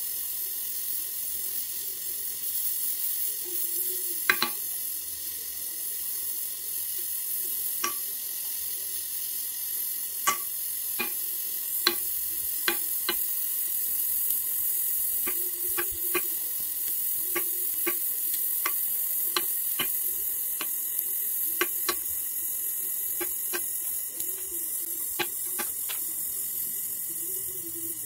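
Gas welding torch flame hissing steadily on an aluminum engine casing as a filler rod is melted in, with sharp irregular pops and crackles that come more often in the second half.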